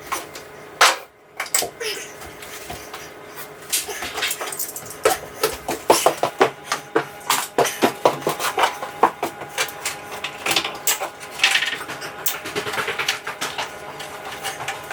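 Irregular clicking and clattering of small hard objects being handled, many sharp knocks in quick succession over a faint steady hum.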